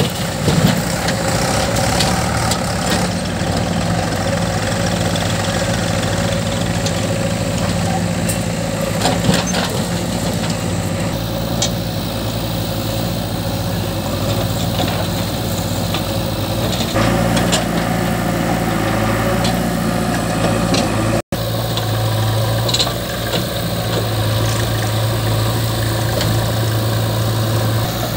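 JCB 3DX backhoe loader's diesel engine running steadily under digging and loading work, with a Mahindra tractor's diesel engine idling alongside. Now and then comes a short clatter of soil and stones dropping into the steel tractor trolley.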